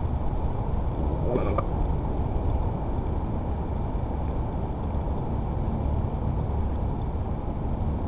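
Steady wind rumble buffeting an outdoor camera microphone, with a brief bird call about a second and a half in.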